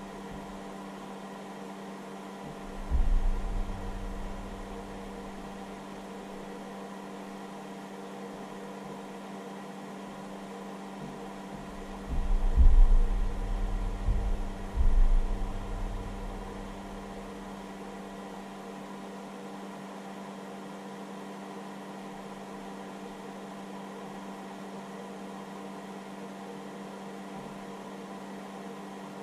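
Steady hum of a hobby battery charger's cooling fan running while the charger works at about 5 amps, with a few fixed tones in it. A low thud comes about three seconds in, and a louder cluster of low thuds and rumbles about halfway through.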